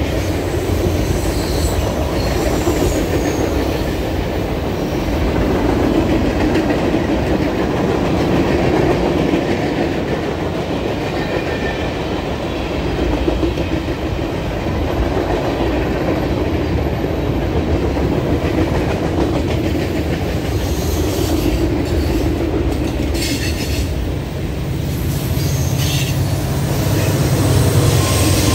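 Freight cars rolling past at close range, steel wheels rumbling and clacking over the rail joints, with a few brief high wheel squeals about three-quarters of the way through. Near the end the low steady drone of a Norfolk Southern diesel locomotive's engine comes in as a mid-train unit draws level.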